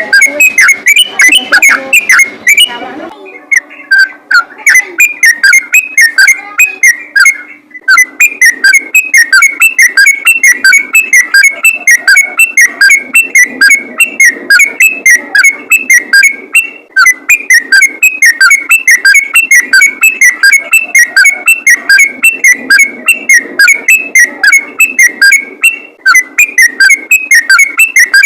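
Sooty-headed bulbul singing a fast, unbroken run of short whistled notes, several a second, in the rapid "ropel" style. The song breaks briefly about 3 seconds and 8 seconds in.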